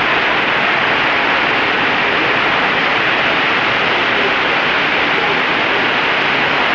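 Steady, loud rush of water from an artificial surf-wave machine, a thin sheet of water pumped at speed up a padded slope.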